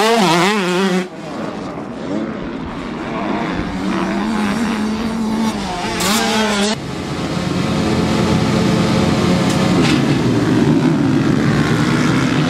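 Motocross dirt bike engines. In the first second one bike's revs swing quickly up and down, then a single bike runs and climbs in pitch. From about seven seconds in, many bikes rev together on the start line.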